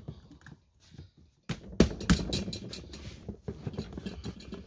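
Utility knife slicing through the top of a cardboard box: a few faint scrapes, then about a second and a half in a continuous scratchy, crackling cut starts, with two sharp snaps near its start.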